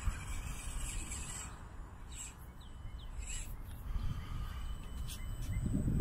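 Birds calling in the background, several short high calls, some sliding down in pitch, over a steady low rumble; the rumble swells near the end.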